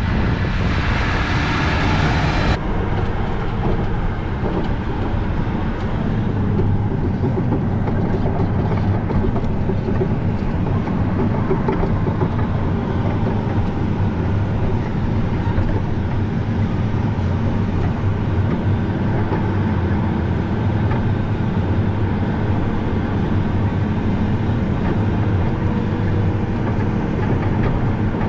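Heavy diesel harvest machinery running steadily, a low rumble with a hiss on top that drops away about two and a half seconds in.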